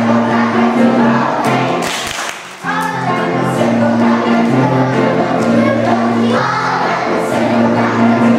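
A group of young children singing a song together over instrumental accompaniment, with a short break between phrases about two seconds in.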